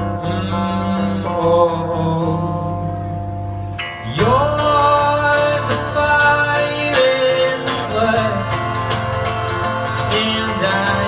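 Acoustic guitar strumming live, with a man's singing voice coming in about four seconds in, sliding up into long held notes over the strummed chords.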